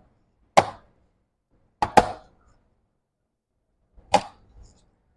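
Sharp clicks and knocks of a MacBook Pro A1990's bottom case being pried off and handled after its screws are out: one about half a second in, a quick double click around two seconds, and another near four seconds.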